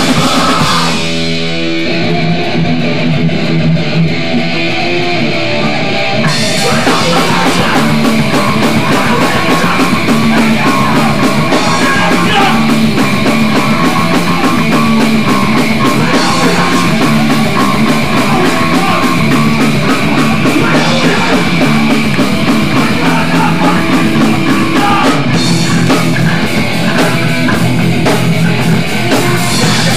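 Hardcore punk band playing live and loud, with distorted electric guitar and drums. For the first few seconds the guitar rings out nearly alone, then the drums and the full band crash in about six seconds in and keep driving fast.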